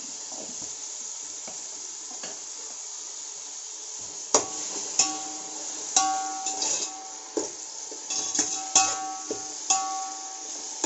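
Onions and tomatoes sizzling in oil in a large aluminium pot. From about four seconds in, a metal spatula stirs and knocks against the pot about eight times, each knock ringing with a bright metallic tone.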